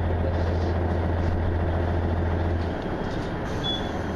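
Diesel railcar's engine heard from inside the passenger cabin as the train pulls slowly along the platform: a steady low drone over running noise that eases off about two and a half seconds in.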